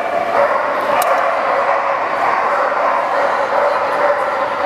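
Many dogs barking and yipping over one another without pause, a dense, steady din. A single sharp click comes about a second in.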